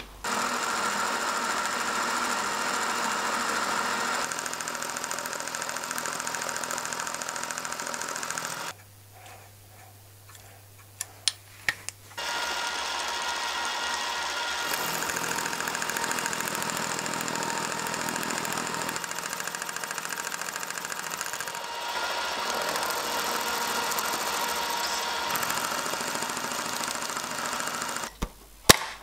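Milling machine running, its end mill cutting a metal bar held in a dividing head: a steady whirring cut with a high ringing tone. About nine seconds in it stops for a few seconds with a few sharp clicks, then the cutting starts again, and a couple of clicks come near the end.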